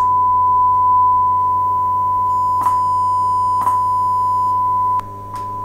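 1 kHz test tone from the control speaker on a car amplifier's output, distorted because the amplifier is being driven into clipping. It carries a row of added overtones. Two faint clicks come in the middle, and about five seconds in it clicks and drops to a quieter tone.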